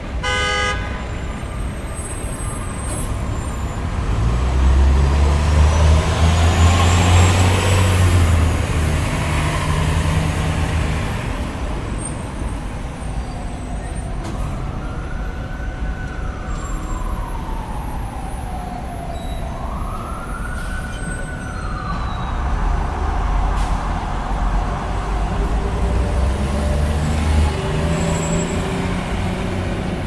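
City street traffic noise: a heavy vehicle's engine rumbles past from about four seconds in, then a siren wails up and down twice. Near the end another heavy vehicle passes.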